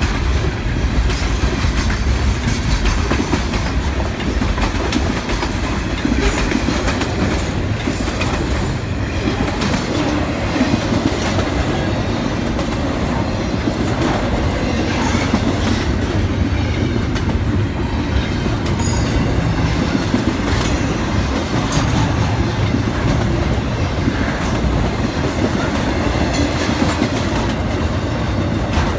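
Cars of a passing intermodal freight train rolling by, a steady rumble with the clickety-clack of wheels over rail joints. A couple of brief high wheel squeals come about two-thirds of the way in.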